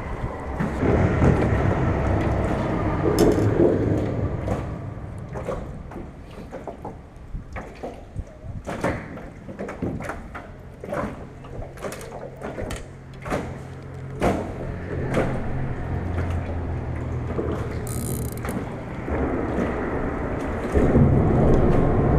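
Irregular clicks and knocks of fishing tackle: a spinning reel being worked and gear handled in a small boat. A low steady hum joins about halfway through.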